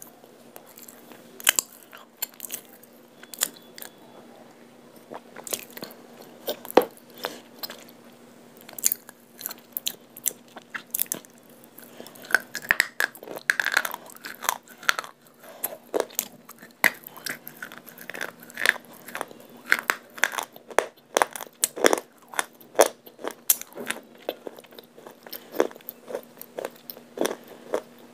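A person crunching and chewing pieces of edible clay close to the microphone: a run of sharp, irregular crunches that grows busier about twelve seconds in.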